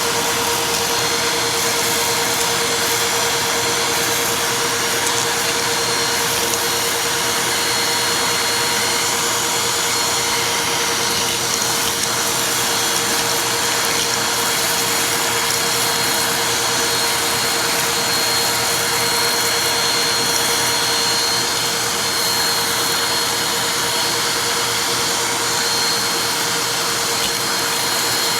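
Vacuum cleaner running steadily: a constant rush of air with a steady whine over it.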